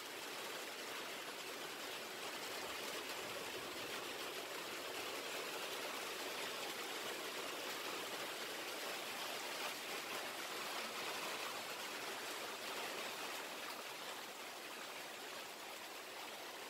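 Heavy rain pouring down in a steady hiss that eases slightly near the end.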